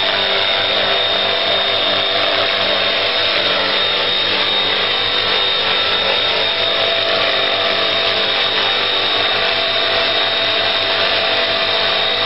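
Electric motor and rotor of a radio-controlled Bell UH-1 Huey model helicopter running steadily, a high, even motor whine over the whir of the blades.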